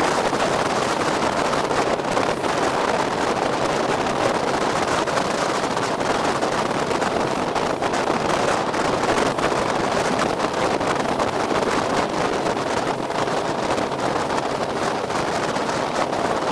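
Wind buffeting the microphone over the steady rush of a small motorboat running across open water.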